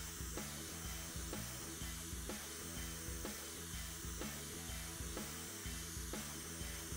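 Background music with a steady beat, over the steady hiss of a handheld gas blowtorch flame.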